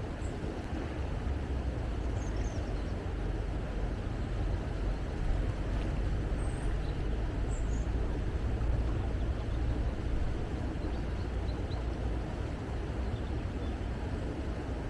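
Steady rushing of a river, with a few faint high bird chirps.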